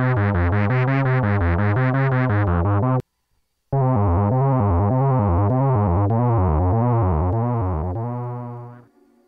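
Moog Werkstatt-01 analog synthesizer playing a fast run of bass notes, about seven a second. It stops abruptly about three seconds in, then resumes a moment later with a duller, less bright tone. It ends on a held low note that fades out near the end.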